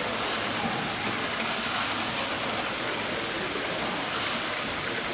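OO gauge model Pendolino train running along its track, a steady rolling noise of motor and wheels on rail mixed with the constant background noise of a large hall.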